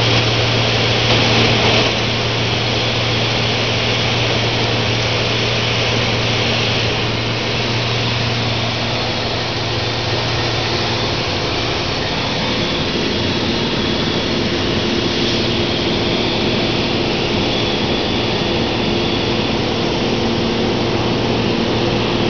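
Steady drone of a floatplane's engine and propeller in flight, heard from inside the cabin. Its tone shifts slightly about twelve seconds in.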